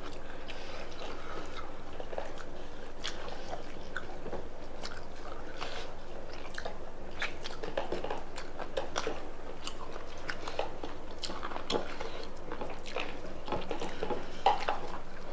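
Close eating sounds: people chewing and biting food, with irregular small clicks and a few sharper ones.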